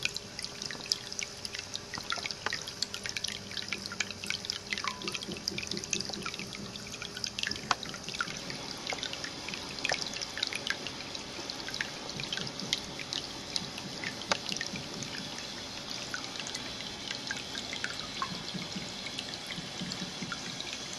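Water running in a small ceramic tabletop cat fountain: a steady trickle with many small drips splashing.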